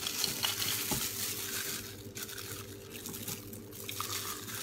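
Soft, wet handling and eating sounds of spicy braised abalone in the shell, picked up with a plastic-gloved hand and bitten, over a faint steady hum.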